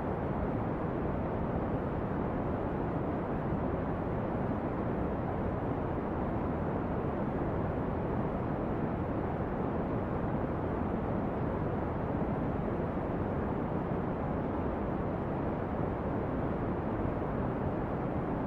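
Steady brown noise: an even, deep rushing hiss, strongest in the bass and fading out toward the treble, with no crackle or change in level.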